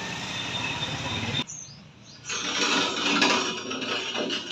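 Lathe machining noise: a steady running sound that cuts off suddenly about a second and a half in. A few short high squeaks follow, then denser scraping cutting noise.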